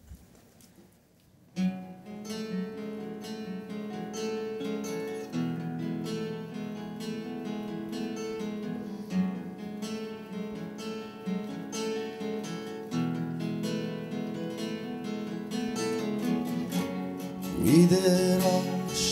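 Acoustic guitars start a song's intro about a second and a half in, after a brief near silence, playing a steady rhythmic pattern. A man's singing voice comes in near the end.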